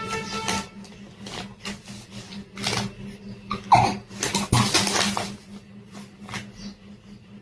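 A baby hiccuping: several short, sudden sounds at irregular spacing, one of them a brief high squeak near the middle.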